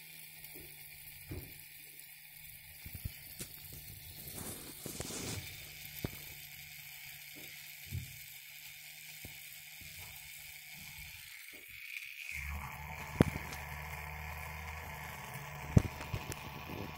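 Small homemade brushless DC motor, switched by a hall-effect sensor, spinning a tiny plastic propeller with a steady high whine. About twelve seconds in the tone shifts and a low hum joins it, and a few sharp knocks come near the end.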